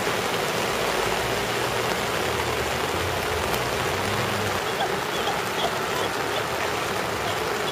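Steady hiss of heavy rain and running water on a flooded street, with a car's low engine hum rising through the middle.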